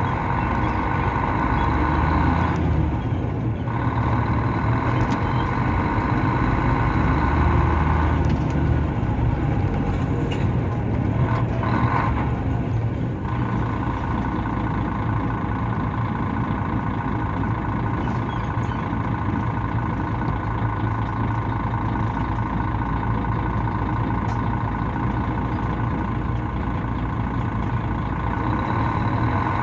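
Mercedes-Benz O500-RS coach's 354 hp diesel engine running while driving, heard from inside the cabin: a steady drone with a whine on top that drops out twice, about three seconds in and again for several seconds around ten seconds in.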